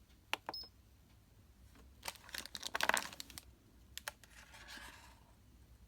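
Handling noise: a few sharp clicks and short bursts of rustling, loudest between about two and three and a half seconds in.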